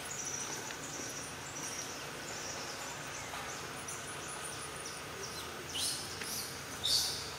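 Outdoor ambience of insects and birds: a steady background with short high chirps, and two louder high calls falling in pitch near the end.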